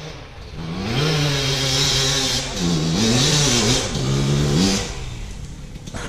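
Enduro dirt bike engine running and revving. Its pitch climbs about a second in, holds, dips and rises again a few times, then drops away near the end.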